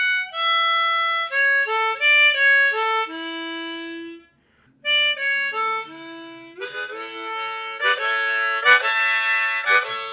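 A 10-hole diatonic harmonica played solo: a simple melody of held single notes, stopping briefly about four seconds in. In the second half the playing gets fuller, with several notes sounding together like chords.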